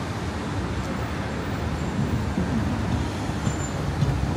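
Steady road traffic noise: a continuous wash of passing vehicles with a low rumble.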